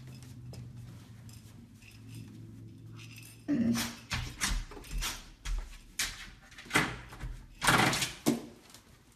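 A golden retriever's paws scratching and knocking against a wooden interior door, a run of about eight sharp thumps and scrapes starting about three and a half seconds in, after a low steady hum.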